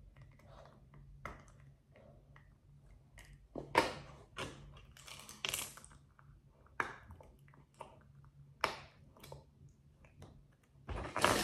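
Plastic toy bricks clicking and snapping as a child bites and prys them apart at his mouth: a string of separate sharp clicks, the loudest about 4, 5½, 7 and 9 seconds in.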